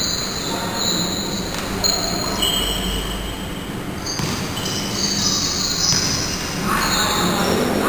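Basketball shoes squeaking on an indoor court, several short high squeaks coming and going, over the shuffle of players' feet and a few thuds of the ball, echoing in a large hall.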